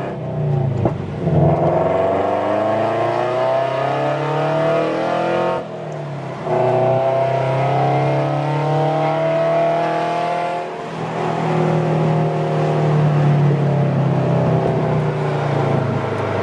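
Flat-four engine of an 86-platform coupe fitted with Tomei unequal-length headers, heard from inside the cabin as the car accelerates. The engine note rises in pitch, with two brief breaks for upshifts about six and eleven seconds in.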